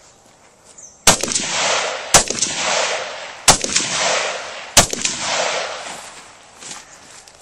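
Four shots from a Rock River Arms AR-15 rifle, fired about a second apart, each followed by a long echo.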